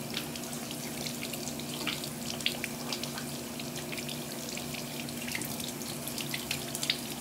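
Bathroom tap running into a sink with irregular splashing as water is cupped and splashed onto the face to rinse off cleanser.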